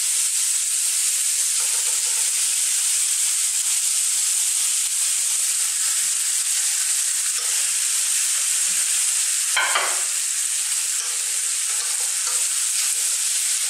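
Cubes of beef sizzling steadily as they brown in hot bacon grease in a stainless steel sauté pan, with one brief louder noise about ten seconds in.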